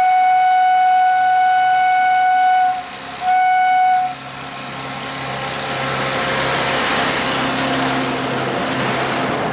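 ZDM narrow-gauge diesel locomotive's horn sounding one long steady blast, then a short second blast after a brief gap; after it the locomotive's engine and the train's running noise grow steadily louder.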